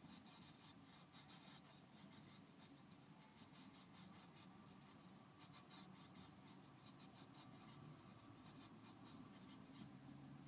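Faint, irregular scratching and rustling of blue tits moving about in the nest material of a nest box, over a steady low hum.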